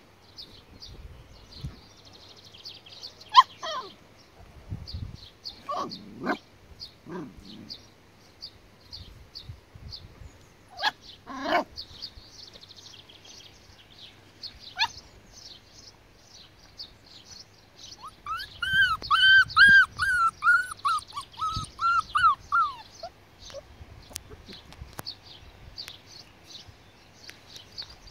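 Border collie puppies whimpering and yipping now and then, then a quick run of about a dozen high yaps lasting some five seconds, about two-thirds of the way through.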